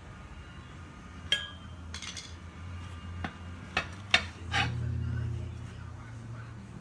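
Metal tire tool clinking and knocking against a small kart wheel's rim as the tire is pried off, about six sharp clinks spaced irregularly, two of them louder. A low steady hum runs underneath and swells briefly a little past halfway.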